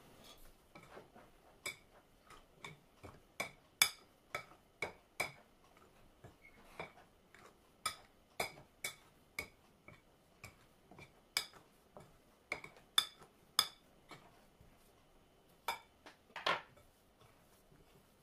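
Metal wire potato masher clinking against a glass mixing bowl while it mashes flour into steamed potatoes. The clinks come sharp and irregular, about two a second, and stop near the end.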